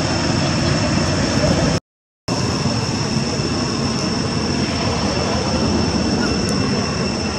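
Steady outdoor ambient drone: a constant high-pitched whine over a low rumbling noise, cutting out completely for about half a second about two seconds in.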